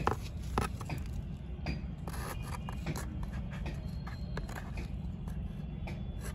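Irregular scrapes and scratches of a small hand tool loosening the soil in a hibiscus pot, with a steady low background rumble.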